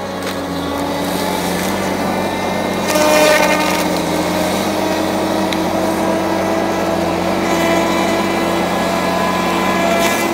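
Tigercat 870C feller buncher's engine and hydraulics running steadily under load, with a hum and a whine that rise slowly in pitch; a brief rush of noise about three seconds in.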